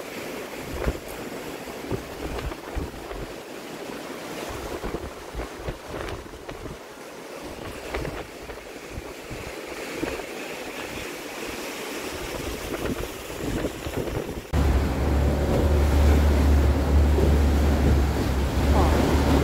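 Outdoor wind noise with scattered light knocks, then an abrupt cut about three-quarters of the way through to a louder, steady low rumble with rushing water and wind on the microphone: a small motorboat running over the sea.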